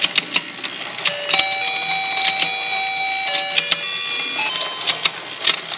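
Battery-powered toy fishing game playing a simple electronic beeping tune while its rotating pond clatters with sharp, irregular plastic clicks as the fish turn and open and close their mouths.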